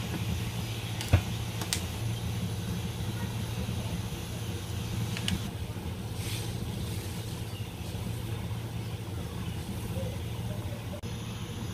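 Pan of pork pieces boiling in water over a lit gas burner: a steady low hum throughout, with a few light clicks in the first seconds and again about five seconds in.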